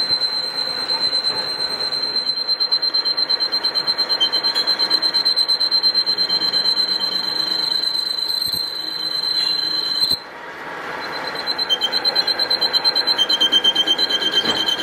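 Metal lathe turning a steel workpiece, the cutting tool giving a loud, high-pitched squeal that pulses several times a second. The squeal cuts out abruptly about ten seconds in and builds back up a second later.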